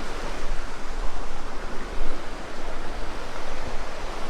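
Steady rush of flowing river water, an even wash of noise with a low rumble underneath.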